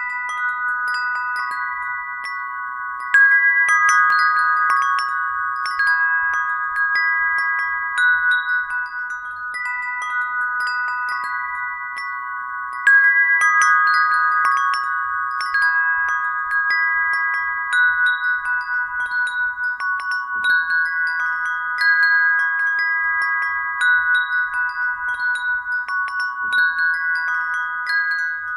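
Tiered brass wind bell, a hanging string of small brass bells, ringing in the breeze: several clear tones sustaining and overlapping as the bells are struck again and again, with louder strikes about three seconds in and again about thirteen seconds in.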